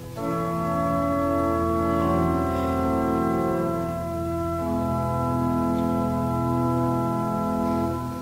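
Church organ playing slow, sustained chords that change every second or two, in the unhurried style of unmetred Dutch psalm accompaniment; the last chord ends right at the close and the sound falls away to faint tape hiss.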